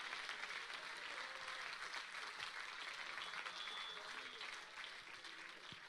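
Church congregation clapping and shouting, with scattered voices through the clapping, which slowly dies down toward the end.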